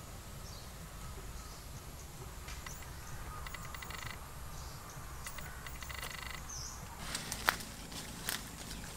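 Quiet outdoor ambience with two short stretches of rapid trilling animal calls and a brief high chirp, then two sharp clicks near the end.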